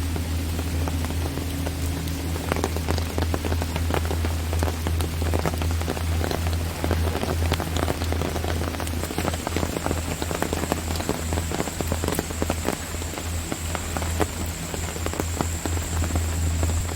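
Rain falling on rainforest foliage, with many separate drops striking close by over a steady wash. A steady low rumble runs underneath, and a thin high whine starts about halfway through.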